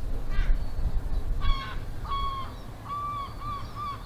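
Gull calling: a few longer harsh calls, then from about three seconds in a run of short arched calls at about three a second, over wind rumbling on the microphone.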